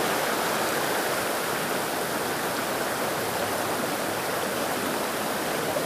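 Shallow river running fast over stones: a steady, even rush of water.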